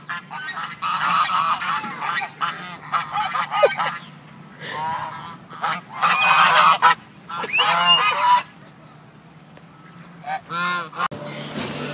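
A flock of domestic geese honking, many birds calling over one another in repeated loud bursts, with a lull of about two seconds near the end before one more short round of honks.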